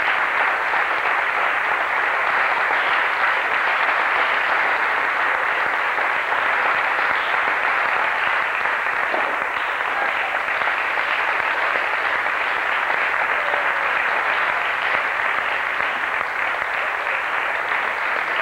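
Audience applauding steadily: a sustained round of clapping at the close of a performance.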